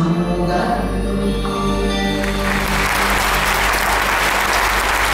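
A live song ends with a held final chord from the band and voice. About two seconds in, the audience breaks into steady applause that carries on.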